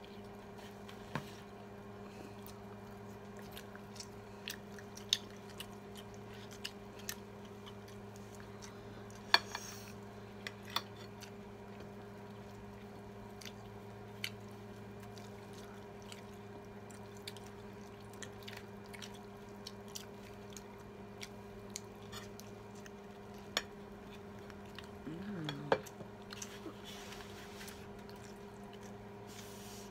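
People eating at a table: scattered sharp clicks of spoons and forks on plates and quiet chewing, over a steady low hum.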